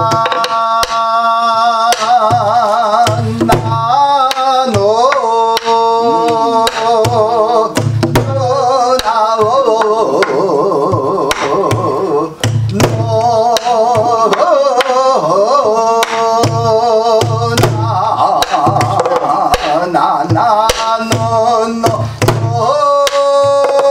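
Korean guum, a wordless vocal melody, sung with a wide wavering vibrato over a buk barrel drum. The drum gives deep strokes on the head and sharp stick clicks on the wooden shell in a steady jangdan rhythm. The teacher judges the singing correct to the score but too bright, lacking the shaded gyemyeon colour.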